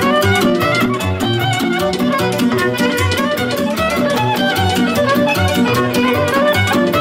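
Live Romanian folk dance music: a violin plays a quick, ornamented melody over electronic keyboard backing with a steady bass and beat.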